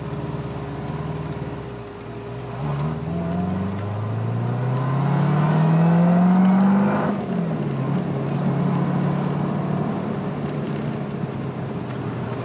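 Supercharged 6.2-litre LT4 V8 of a modified 2016 Corvette Z06, heard from the open-top cabin, accelerating through a gear. Its note climbs steadily for about three seconds, drops abruptly about seven seconds in as the manual gearbox is shifted up, then settles into a steady cruise.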